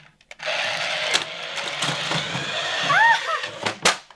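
Transforming toy RC car (Odyssey Auto Moto Bugatti) whirring steadily, its small electric motors and gears running, with a couple of sharp clacks near the end.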